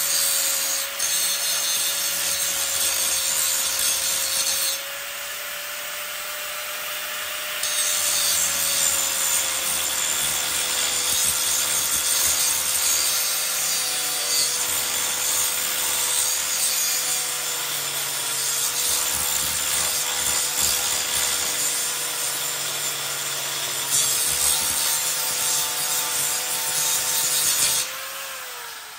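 Grinder with a grinding wheel grinding metal, its motor running at a steady pitch under a harsh grinding noise that eases for a few seconds about five seconds in. Near the end it is switched off and the wheel spins down with falling pitch.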